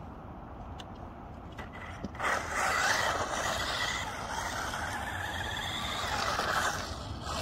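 A 1/16-scale 4WD electric RC car pulls away from standstill about two seconds in and drives off across asphalt: motor and drivetrain whirring with tyre noise, swelling and easing as it speeds about, then dropping just before the end.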